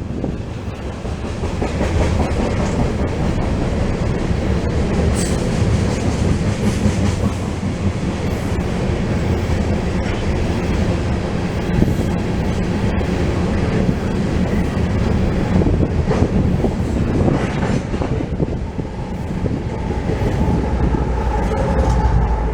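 Loaded freight train of ethanol tank cars rolling past with a steady rumble and the clickety-clack of wheels over rail joints. A faint, high, steady whine joins near the end.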